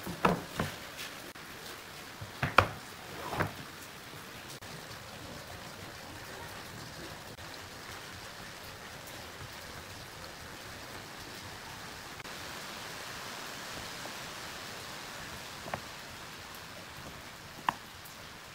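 Wooden pieces handled on a workbench: a few sharp knocks in the first few seconds and more clicks near the end as small wooden blocks are set down, over a steady faint hiss.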